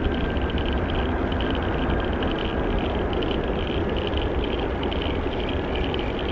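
Boeing 787-8 jet engines at takeoff thrust, a steady deep rumble with a hiss, and a faint high whine that fades out in the first half.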